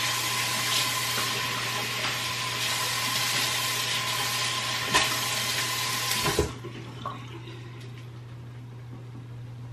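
Bathroom sink tap running while cleanser is rinsed off a face. The water is shut off suddenly about six seconds in.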